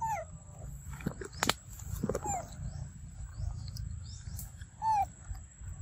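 Macaque giving three short falling calls, with a couple of sharp clicks between the first and second.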